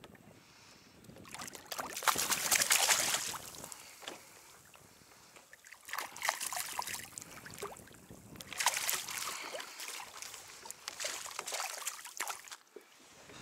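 A hooked fish thrashing at the water's surface beside a kayak, splashing in three bursts, the longest near the end as it is brought into a landing net.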